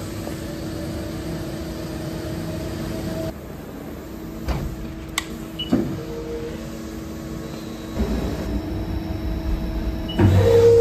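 Haas ST20Y CNC lathe running a turning cycle on steel pipe, with coolant spraying and a steady hum carrying a held spindle tone. The hum stops about three seconds in, a few clanks and clicks follow, and near the end the machine starts up again with a louder burst.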